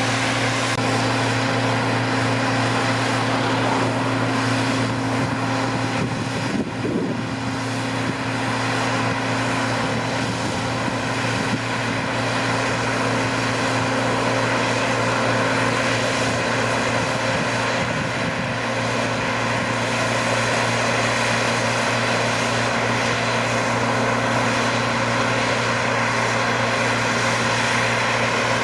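Diesel engine of heavy harvest machinery running at a steady, constant speed, a continuous low drone with a brief dip about a quarter of the way in.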